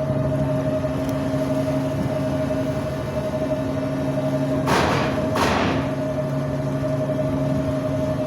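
Steady machinery hum from the docked car ferry, several even tones over a rushing background. Two dull thumps come about 0.7 s apart near the middle.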